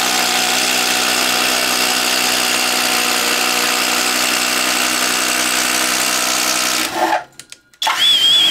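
Flex 24V brushless impact driver at its top speed (speed 3) driving a spade bit into a wooden post, running steadily for about seven seconds and then stopping. About a second later there is a second short run with a thin high whine.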